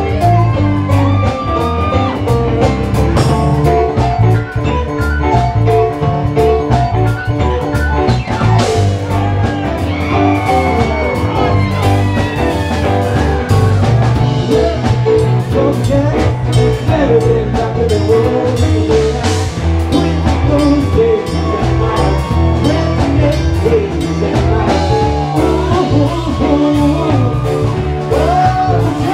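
Live band music: electric guitar over drum kit and keyboard, the lead line bending up and down in pitch.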